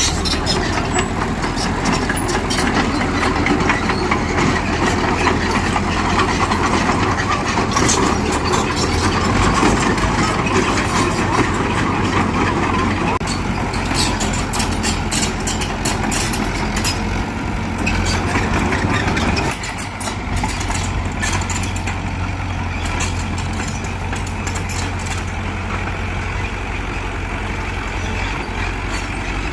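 Heavy diesel earthmoving machinery running, with a steady low engine drone and louder working noise with scattered clanks. About two-thirds of the way through the working noise drops off and the engine drone carries on.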